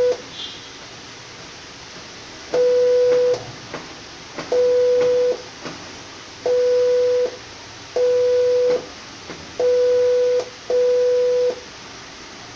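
Electronic beep from a DishTV set-top box on its transponder signal-check screen: a steady tone of one pitch, just under a second long, sounding six times at uneven gaps over faint hiss.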